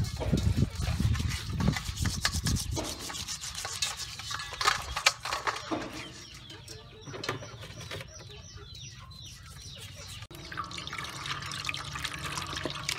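Hands rubbing and handling raw whole fish against a stainless steel bowl, with many small scrapes and knocks on the metal. From about ten seconds in, water runs into the bowl and the fish is swished through it.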